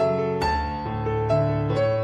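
Gentle piano background music: single notes picked out over held low notes.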